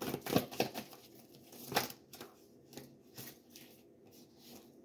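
A deck of tarot cards being shuffled by hand: a string of short papery snaps and clicks, loudest and most frequent in the first two seconds, then fainter and sparser.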